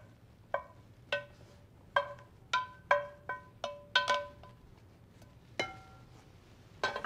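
Wooden spoon knocking against a stainless steel Viking sauté pan while vegetables are scraped out of it: about a dozen sharp taps, irregularly spaced, each leaving a short metallic ring.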